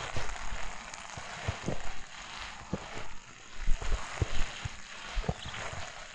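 Footsteps crunching through fresh snow at a walking pace, each step a short crunch with a soft low thud.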